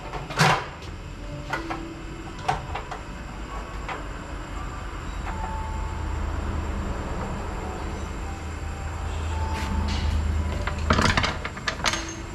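Clicks and knocks of metal parts and hand tools as the recoil starter is fitted back onto a small household snowblower, with a cluster of louder clanks about eleven seconds in. A low steady hum runs underneath and swells toward the middle.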